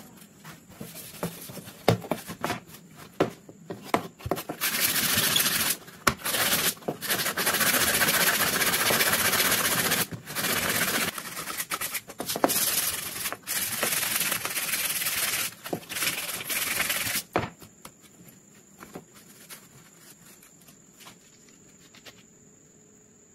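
Hand sanding of Mauser rifle parts: long runs of rasping rubbing strokes, broken by short pauses. Before them come a few sharp knocks as parts are handled, and after them a few faint clicks.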